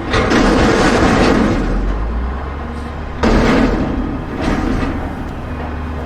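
Dump truck's diesel engine running steadily, with two loud clattering crashes over it: a long one at the start and a shorter one about three seconds in.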